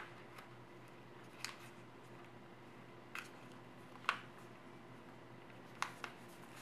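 Sheet of origami paper being folded and creased by hand: about six short, crisp paper crackles, the loudest about four seconds in.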